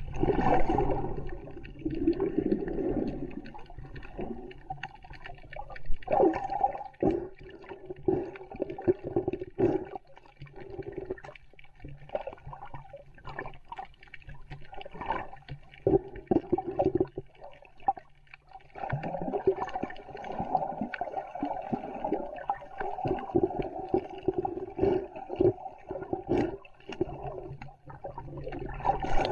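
Muffled water sloshing and gurgling against an action camera held underwater, with many small clicks and knocks; it eases briefly a little past halfway, then picks up again.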